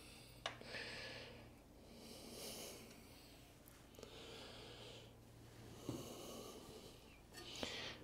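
A person breathing in and out through the nose close to the microphone, a breath about every two seconds, with a few faint clicks between.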